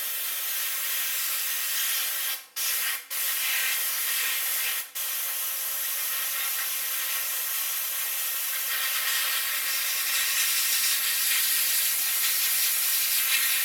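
Airbrush spraying black paint: a steady hiss of air and paint, cut off briefly three times a couple of seconds in as the trigger is let go, then running on.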